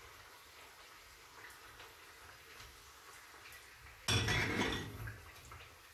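Metal spoon scraping and clinking against a karahi while stirring tomato slices, with a few light clinks at first and then a sudden loud clatter about four seconds in that lasts about a second.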